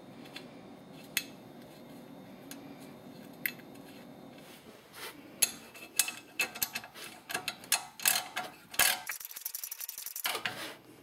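Small ratcheting wrench clicking as it turns the differential vent cap down onto the rear axle tube. The first half is faint, with a few scattered clicks. The clicks come thick in the second half, ending in a quick run of fast even ticks just before the cap is snug.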